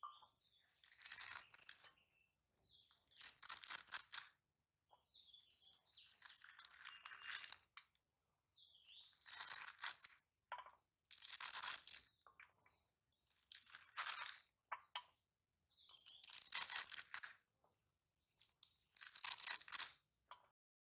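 Fresh spinach leaves and stems being sliced against an upright boti blade: crisp tearing, crunching strokes, about eight of them a couple of seconds apart.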